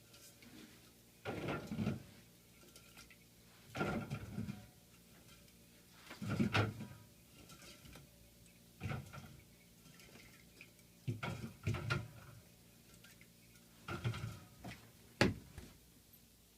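355 ml aluminium drink cans being set onto fridge shelves one after another: a run of knocks and clinks every two to three seconds, the sharpest one near the end.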